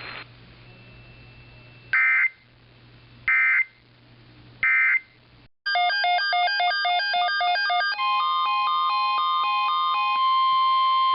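NOAA Weather Radio SAME end-of-message data: three short bursts of digital warbling, each about a third of a second, spaced about a second and a half apart, marking the end of the warning. A couple of seconds later loud electronic alert tones begin: a rapidly changing multi-tone pattern, then a steady alert tone with beeping tones over it, signalling a new alert.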